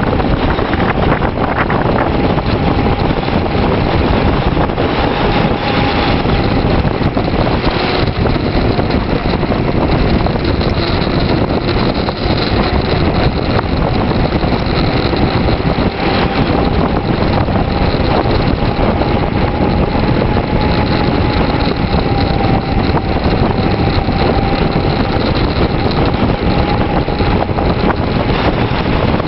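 Loud, steady wind rush over the microphone of a camera riding on a bicycle coasting downhill, with a faint steady whine underneath.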